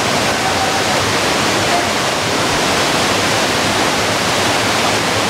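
Waterfall cascading over rock ledges: a loud, steady rush of falling water.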